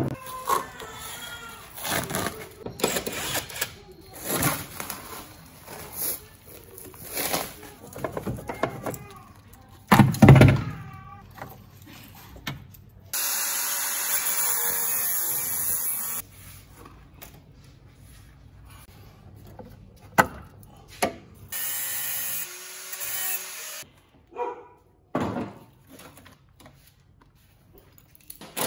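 Scattered knocks and clatter of rusty car-body parts being pulled and handled, with a heavy thump about ten seconds in. In the middle a Makita angle grinder with a cutting disc runs steadily against the rusted body metal for about three seconds, then stops.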